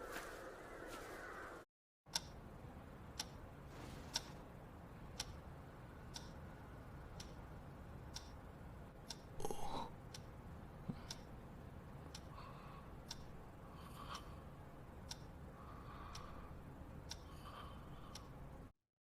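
A clock ticking about once a second over a low steady hum, after a brief stretch of crows cawing at the start that cuts off.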